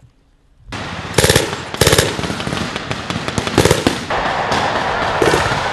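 Automatic weapons fire that starts abruptly under a second in: louder bursts of rapid shots at about one and two seconds and again near four seconds, with a steady crackle of shooting between them.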